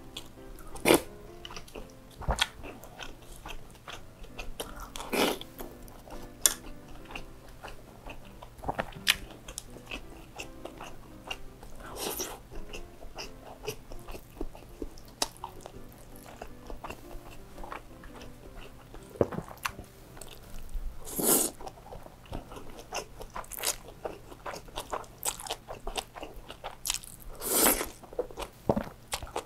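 Close-miked mukbang eating of chili-oil noodles and minced meat: wet chewing and lip smacks with many small clicks, and a few louder slurps of noodles, the biggest about three-quarters of the way through and near the end. Soft background music underneath.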